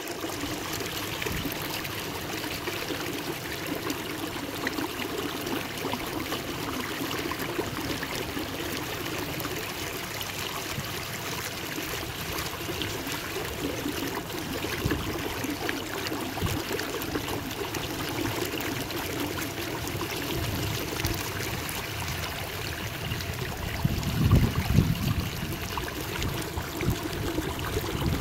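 Kayak paddle strokes dripping and splashing, with water trickling along the hull as the kayak glides through calm river water. A louder low rumble rises briefly near the end.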